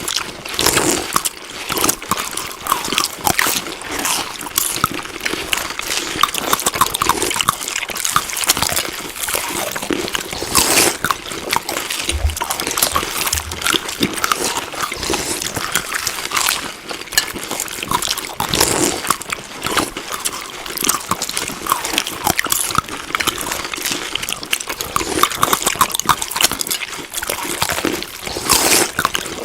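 Close-miked chewing: a steady run of wet, smacking and crackling mouth sounds of food being eaten.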